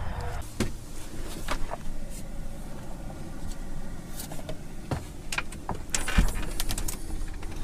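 Chinese diesel air heater running just after start-up: a steady low hum from its blower and burner, with scattered clicks and knocks through it.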